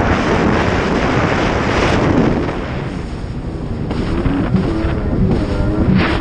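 Wind buffeting the microphone and water rushing as a Yamaha XLT1200 WaveRunner's three-cylinder two-stroke runs through rough chop. About halfway through the rush eases and the engine's wavering note comes through.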